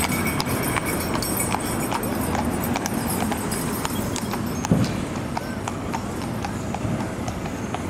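Horse's hooves clip-clopping on the road as it pulls a carriage past, growing fainter. A single short thump comes a little past halfway.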